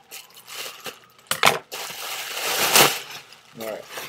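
Clear plastic packaging bag crinkling and crackling as it is handled and pulled open around a compressed plush pillow, in a run of loud bursts, the loudest about a second and a half in and near three seconds in.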